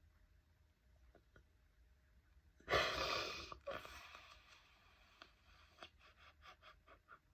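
A woman crying softly. About three seconds in she takes one loud breath, and a shorter one follows it. Then come faint small breaths and mouth clicks.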